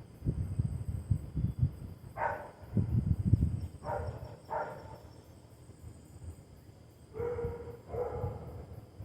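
Five short animal calls, single ones about two and four and a half seconds in, and a closer pair near the end, over low rumbling noise in the first half.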